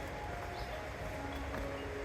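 Soft background music with long held notes changing pitch, over a steady low rumble.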